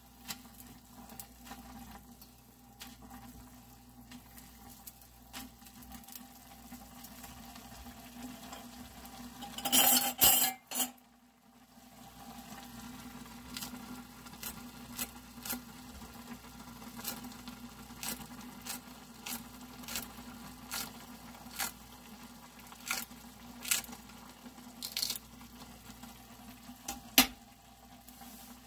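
Kitchen scissors snipping a green chili pepper into a pot of ramen: a string of short, sharp snips about a second apart, the last one loud. Before them come light chopstick clicks against a glass saucepan and, about ten seconds in, a loud burst of handling noise, all over a steady low hum.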